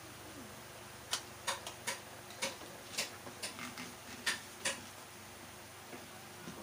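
Two dogs eating from a plastic tray beside a person eating from a plate: about a dozen sharp clicks and taps of chewing and of food and teeth or fingers on tray and plate, bunched between about one and five seconds in.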